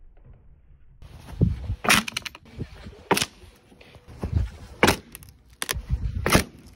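Boot stomps on the old wooden playset's beams, starting about a second in: heavy thuds and four sharp cracks of splintering wood, roughly a second and a half apart.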